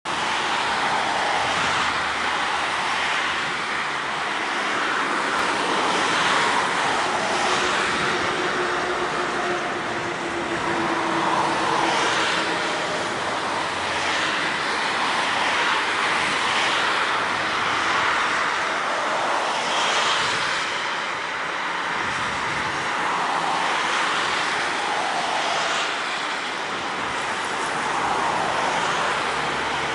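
Boeing 737-800's CFM56 jet engines on final approach: a steady rushing jet roar that swells and eases every few seconds, with faint engine tones sliding in pitch now and then.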